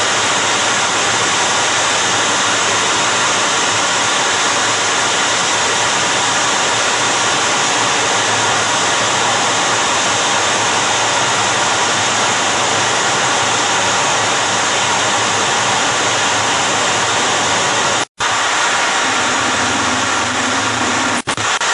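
F-14 Tomcat's jet engines running, a loud steady noise heard from inside the cockpit. The sound cuts out abruptly for a moment near the end, and a low hum joins in afterwards.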